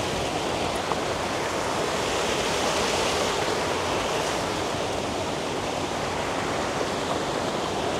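Waterfall's falling water, a steady even rushing noise.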